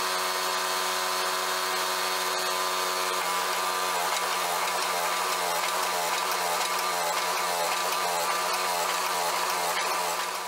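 Hydraulic forging press running, its electric motor and pump giving a steady pitched hum while the dies squeeze the hot blade, the tone wavering slightly from about four seconds in.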